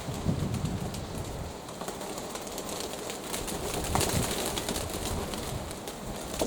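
Domestic pigeons cooing, with strong wind buffeting the microphone.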